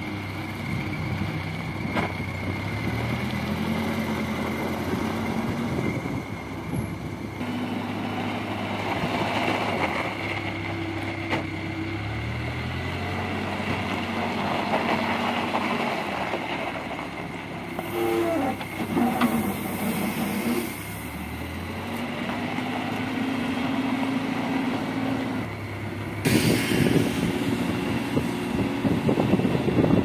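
Terex 860 backhoe loader's diesel engine running, its revs rising and falling several times as it works. A louder rushing noise sets in near the end.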